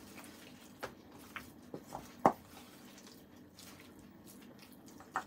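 Shrimp being stirred through thick tempura batter in a bowl: wet squelching with a handful of short, sharp squishes, the loudest a little over two seconds in.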